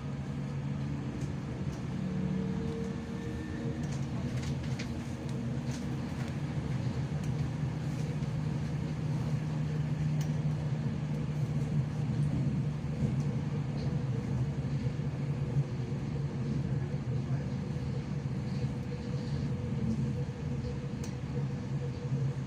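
Hamburg U-Bahn DT4 train, unit 150-1, running between stations, heard from inside the car: a steady electric drive hum with a low and a middle tone over the rumble of wheels on rail.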